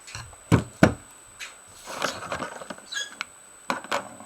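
Small hard clicks and knocks with a short rustle as a charging cable and USB ammeter are handled and plugged in, the two loudest knocks in the first second, with a brief high chirp about three seconds in.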